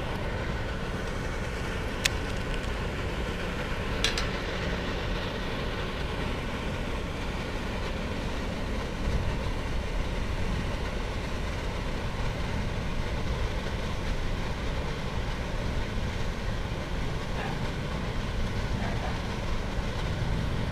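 Steady rumbling outdoor background noise, with two faint sharp clicks about two and four seconds in.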